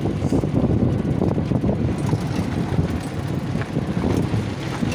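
Vehicle driving over a rough dirt track: a steady low rumble full of rattles and knocks from the ride.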